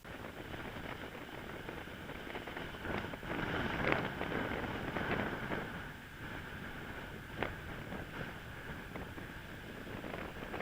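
Steady outdoor wind and water noise on the lakeshore, with a few sharp knocks or splashes about three, four and seven seconds in.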